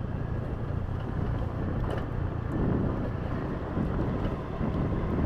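Motor scooter riding along a road: steady engine and road noise mixed with low wind noise on the microphone.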